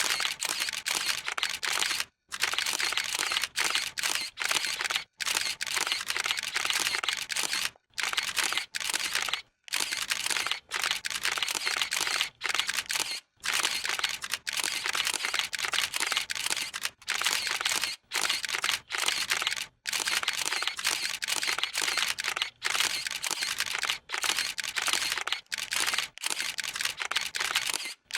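Camera shutter clicking in rapid continuous bursts, the clicks running close together and broken by short pauses every second or two.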